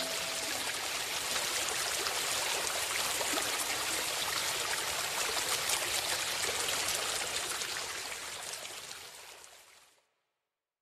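Recorded stream, water running and trickling steadily, fading out to silence near the end. The last held synth notes die away just at the start.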